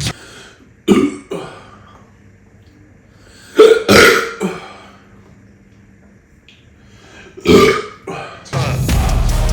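A man burping three times, about a second in, the loudest around four seconds in, and again near the end, with his stomach full of chicken nuggets.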